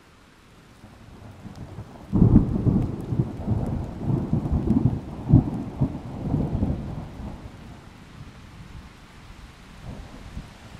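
A deep, rolling rumble that breaks in suddenly about two seconds in, surges unevenly for several seconds, then fades away.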